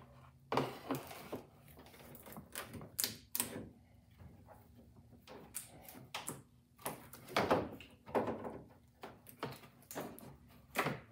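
Large plastic cowl cover being worked into place below the windshield: an irregular run of short plastic knocks, clicks and taps as it is pushed and seated.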